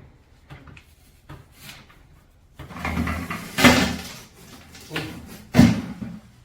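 Clattering and scraping as a sooty stove flue pipe is handled and taken apart, with a few sharp knocks of the pipe about halfway through and near the end.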